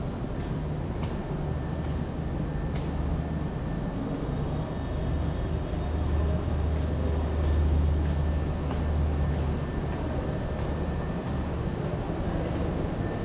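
A steady low rumble that swells a little partway through, with faint footsteps on stair treads.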